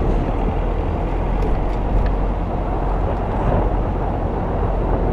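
Steady noise of a car driving along at low speed, engine and tyre noise mixed with a low rumble of wind on the microphone.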